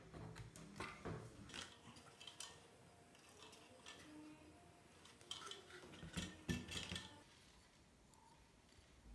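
Faint handling noises of small hard parts, a thin composite aluminium panel and aluminium brackets, being moved and set against one another and on a cutting mat: scattered light clicks, taps and rustles, with a brief busier run of knocks about six to seven seconds in.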